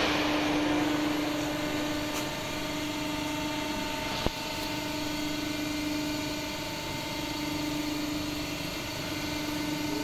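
Large tandem hydraulic press brake idling: a steady machine hum from its running hydraulic power unit, with a hiss fading away in the first second and a single sharp click about four seconds in.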